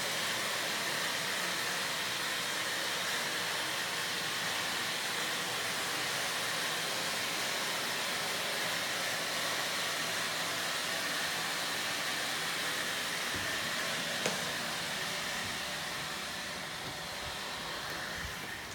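Steady rushing-air hiss of a running machine, even and unbroken, with one sharp click about fourteen seconds in; it grows a little quieter near the end.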